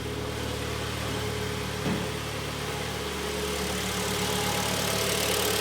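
Freshly rebuilt Kia Sportage G4KD 2.0-litre four-cylinder petrol engine idling steadily, running evenly and quietly with no piston knock after the block was rebored.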